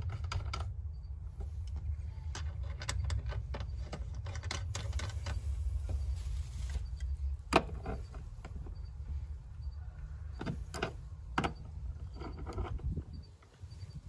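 Scattered metal clicks and clinks as brass service-valve caps on a mini-split outdoor unit are screwed back on and tightened with a wrench, with one sharper click about halfway through. Under them runs a steady low rumble.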